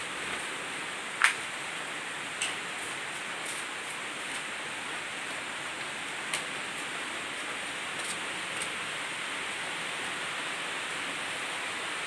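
Steady rain falling, an even hiss, with a few sharp taps of drops or knocks, the loudest about a second in.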